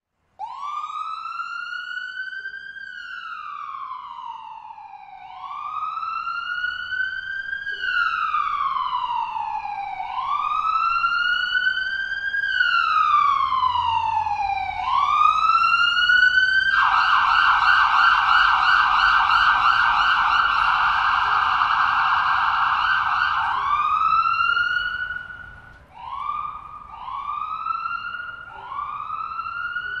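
Ambulance siren passing by: a slow rising-and-falling wail that switches to a fast yelp about 17 seconds in, then goes back to the wail around 24 seconds. It grows louder and is loudest during the yelp, then falls off as the ambulance passes.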